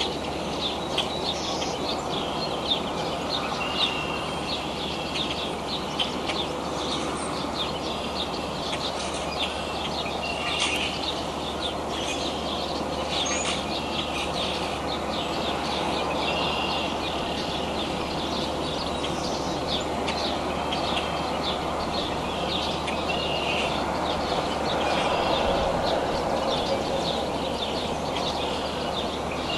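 Small birds chirping, many short high chirps repeating throughout, over a steady background rush of noise.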